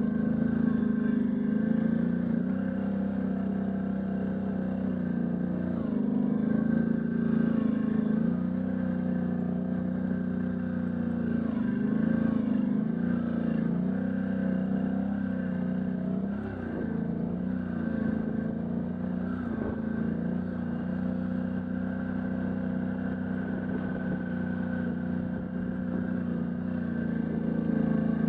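Can-Am Outlander ATV engine running while riding: a steady drone whose pitch rises and dips as the throttle is worked.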